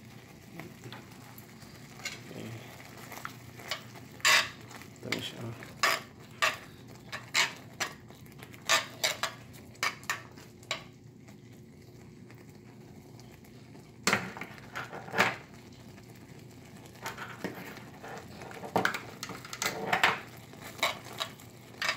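A spoon stirring thick sauce in a cast-iron skillet, making irregular sharp clinks and scrapes against the pan, with a pause of a few seconds about halfway through.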